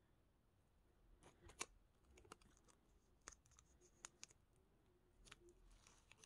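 Near silence, broken by a few faint, scattered clicks and crinkles from crystals and their plastic bubble-wrap packaging being handled.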